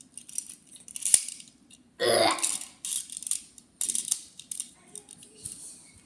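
Plastic toy robots being handled and clicked through their moving parts, with sharp clicks and rattles, and a short loud rasping noise about two seconds in.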